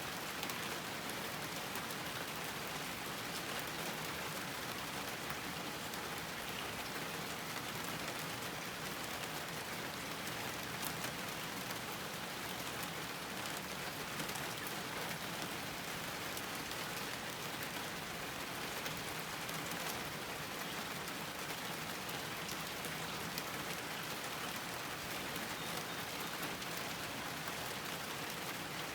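Steady rain falling on a garden, a constant hiss of rain with many small drop patters throughout.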